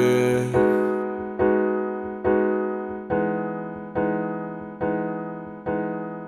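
Music: solo piano, in an electric-piano tone, playing a slow run of chords. A chord is struck a little more often than once a second, and each one fades before the next.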